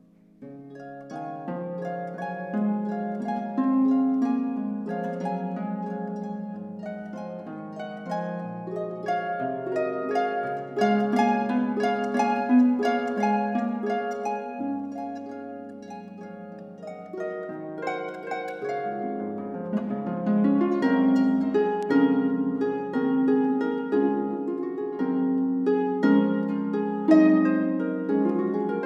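Solo harp playing a slow melody over plucked chords, the notes ringing on and overlapping.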